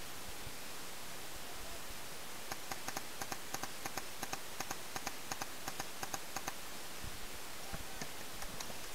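Paintball markers firing in a rapid string of sharp clicks, about five a second, for about four seconds, then a couple of single shots near the end, over a steady hiss.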